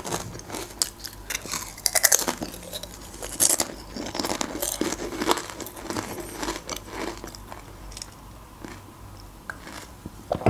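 Close-miked biting and chewing of crunchy potato chips: a quick run of sharp crunches that thins out to softer chewing in the last few seconds.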